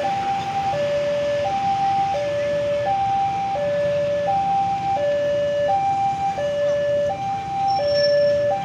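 Electronic railway level-crossing warning alarm sounding a steady two-tone hi-lo signal, each tone about 0.7 s long, with a second alarm in a higher pitch joining out of step about halfway. The low rumble of passenger coaches rolling past runs underneath.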